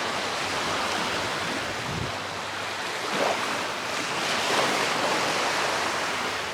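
Sea waves washing onto the beach, a steady rush of surf that swells a little about four seconds in.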